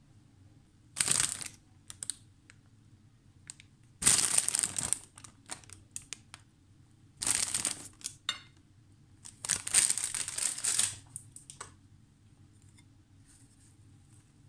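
Crinkly rustling in four short bursts, about a second each, as handfuls of fresh bean sprouts are laid onto a plate.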